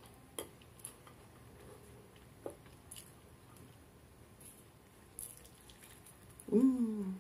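Faint, scattered clicks and taps of fingers picking food off a plate. Near the end comes a brief hummed voice sound that falls slightly in pitch, the loudest thing heard.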